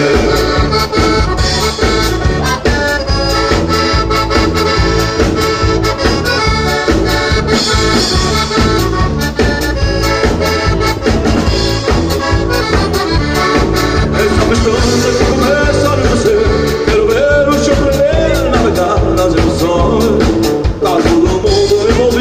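Live band playing an instrumental passage of Portuguese pimba music: an accordion carries the melody over guitar, electric bass and a drum kit keeping a steady, quick beat.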